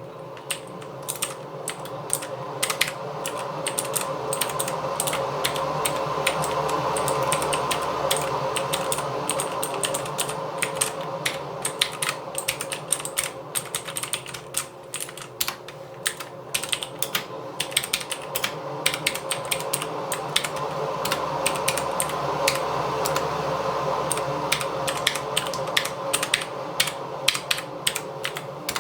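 Continuous typing on a TGR Jane V2 mechanical keyboard with lubed Cherry MX Brown tactile switches: a rapid, irregular stream of key presses and bottom-outs. A steady background hum runs underneath.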